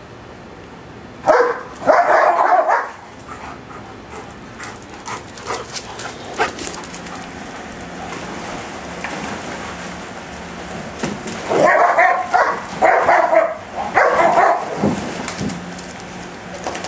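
Giant Schnauzers barking in play: a short burst of barks about a second in, then a run of several barks later on. Between them come scattered light splashes and pats, fitting paws on wet concrete.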